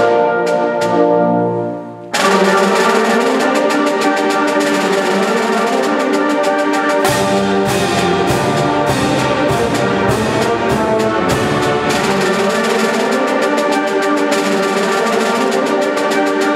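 Live ensemble music with prominent brass. A held chord dies away about two seconds in, then the full ensemble comes in loud with fast, rhythmic playing, and a low bass line joins around seven seconds in.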